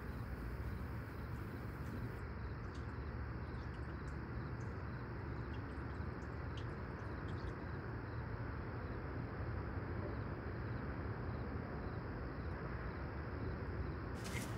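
Quiet, steady background ambience: a low hum and hiss with a few faint ticks.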